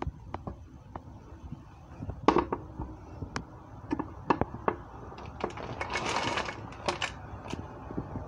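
Scattered light clicks and knocks of kitchen handling, with a scrape lasting about half a second around six seconds in, as chopped cooked bacon is pushed off a cutting board into a crock pot of dry black-eyed peas.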